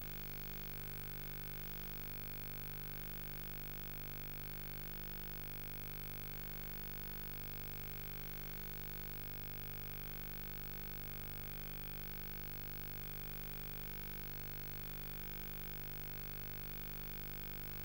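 Steady electrical hum and hiss with no programme sound: the audio track of this Betamax tape transfer is blank.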